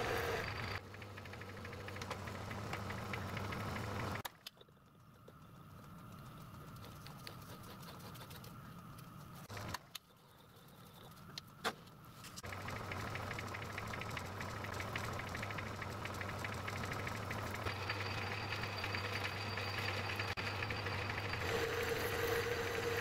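Metal-turning lathe running with a steady motor hum and gear whine. It stops about four seconds in; a few sharp metallic clicks sound in the quiet stretch, the loudest just before the lathe starts running again a little past halfway.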